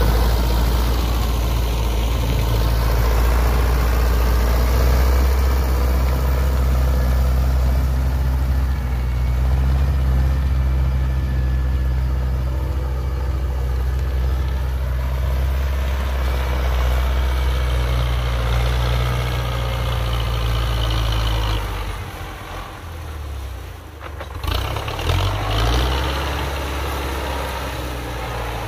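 Belarus 925 tractor's diesel engine running steadily while its rear rotary tiller churns dry, cracked soil. About three-quarters of the way through, the sound drops and the engine note wavers, then picks up again.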